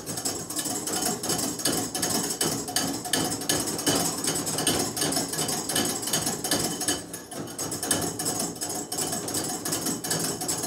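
Wire whisk beating an egg-yolk sabayon in a bowl, its wires clicking and scraping against the bowl in rapid, even strokes, about five a second, as the mixture thickens.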